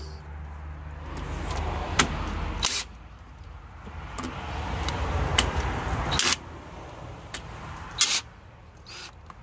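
Several sharp clicks and knocks of hands and tools working on a lawn tractor's plastic engine cover, over a low steady hum.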